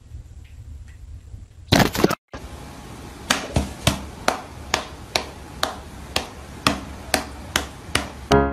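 A steady run of sharp slaps, about three a second, each dying away quickly. Before it there is a single loud burst and a brief dropout about two seconds in.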